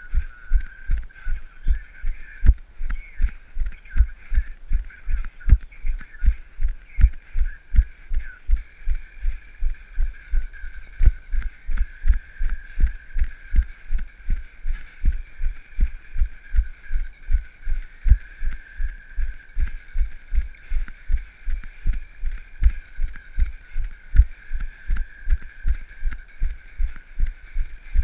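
A runner's footfalls jolting a carried camera: dull low thumps in a steady rhythm of about three a second, over a faint steady high whine.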